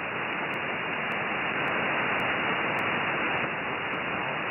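Steady static hiss from an SDR satellite receiver (Airspy Mini on the 70 cm downlink) in single-sideband mode, with no station in the passband. The hiss is held to the narrow voice band of the sideband filter, which gives it a thin, muffled sound.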